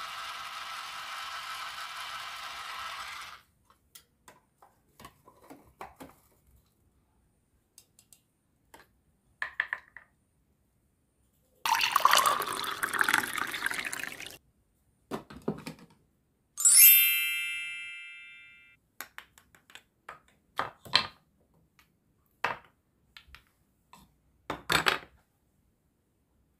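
Red liquid poured from a plastic toy mixing bowl into a small cup, a splashing trickle of about three seconds midway. Before it, a steady electronic whir stops about three seconds in; after it, a single bright toy chime rings and fades, then light plastic clicks and taps.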